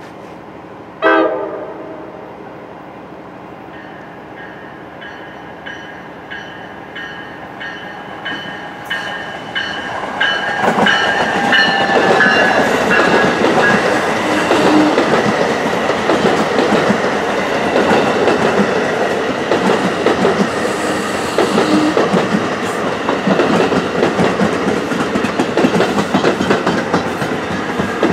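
NJ Transit push-pull train, a Multilevel cab car leading and an ALP-46A electric locomotive pushing at the rear, approaching and passing at speed. A short horn blast comes about a second in, then a regular rhythmic ringing grows as the train nears. From about ten seconds in, the wheels and cars go by in a loud, continuous rush.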